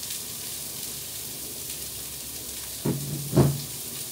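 Chicken, bacon and vegetables sizzling on a Blackstone gas flat-top griddle: a steady frying hiss, with two short voice sounds about three seconds in.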